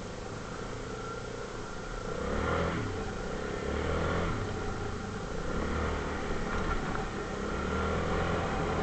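ATV engine running, with the throttle opened and eased off several times: the engine note rises about two seconds in and then swells and falls repeatedly.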